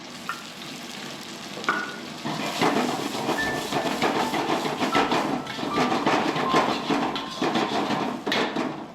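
Chopped aromatics (ginger, garlic, chilies, shallots) sizzling in hot oil in a pan, stirred and scraped with a metal spatula, with clicks and brief clinks of metal on the pan.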